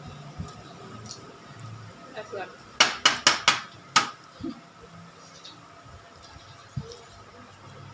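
Balot, a boiled duck egg, knocked against a ceramic plate to crack its shell: five sharp knocks in quick succession, about three seconds in, with a few faint clicks around them.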